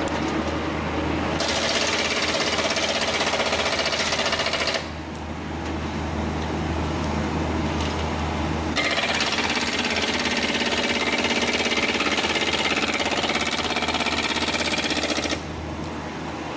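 Hydraulic breaker hammer on heavy equipment pounding rapidly in two runs, the first about three seconds long and the second about seven, over a steady engine hum.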